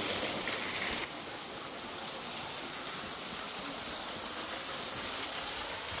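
Waterfall: steady rushing and splashing water, dropping a little in level about a second in.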